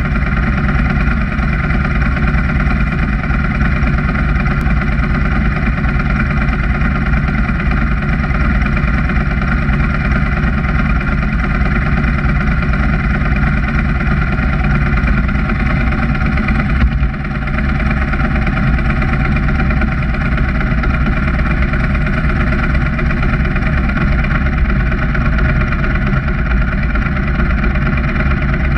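Motorcycle engine idling steadily, with a brief dip in level about seventeen seconds in.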